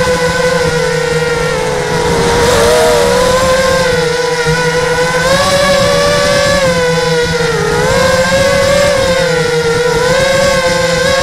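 Electric motor and propeller whine of a small radio-controlled model aircraft, picked up by the action camera riding on it. The pitch wavers up and down as the throttle changes, over a steady low hum and a rush of noise.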